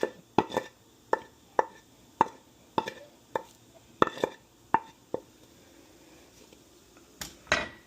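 A utensil knocking against a dish about twice a second for roughly five seconds, then two louder knocks near the end, as thick chili sauce is transferred into a serving bowl.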